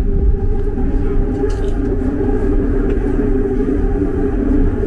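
Paris Métro train running, heard from inside the carriage: a loud, steady low rumble with a droning motor tone.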